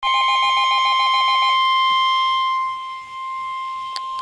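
NOAA Weather Radio 1050 Hz warning alarm tone, a single loud steady tone that signals a warning message is about to follow. For the first second and a half a second, rapidly pulsing tone sounds with it, and there is a short click near the end.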